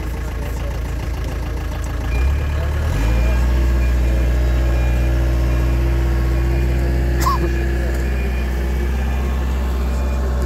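Engine of a heavy work machine running just after being started, its revs rising about two to three seconds in and then holding steady. A brief sharp click about seven seconds in.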